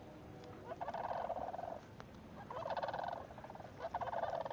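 A group of cranes calling back and forth in rolling, rattling calls, three bouts in a row.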